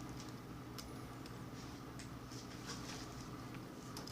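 Faint, scattered small clicks of a metal hook pick working the pins of a Schlage six-pin lock cylinder under a tension wrench, over a steady low hum.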